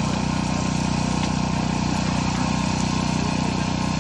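An engine idling steadily at a constant, unchanging speed.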